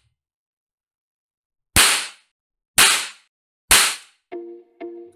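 All-metal toy cap revolver firing three caps: sharp cracks about a second apart, each ringing briefly. Plucked-string music starts near the end.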